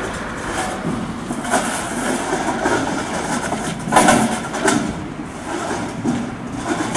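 Truck engine running steadily, with a few short knocks about one and a half, four and nearly five seconds in.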